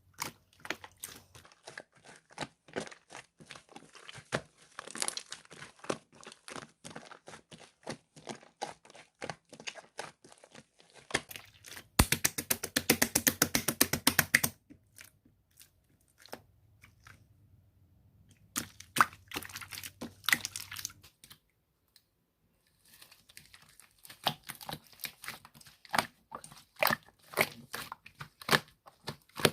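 Slime being handled: a rapid run of sticky clicks and crackling pops as it is pressed, stretched and folded. A denser, louder stretch of crackling comes about twelve seconds in, and the sound stops briefly a little after twenty seconds.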